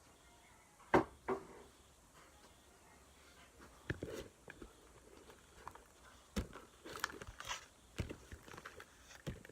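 Crunchy slime with beads mixed in being squeezed and worked by hand, giving short crackling crunches and pops at irregular intervals, the loudest about a second in.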